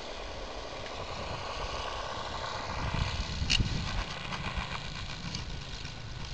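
Radio-controlled model airplane's motor and propeller whining faintly as it flies low, the whine fading after about four seconds as the model touches down on the snow. A gusty low rumble of wind on the microphone runs underneath, with one sharp click midway.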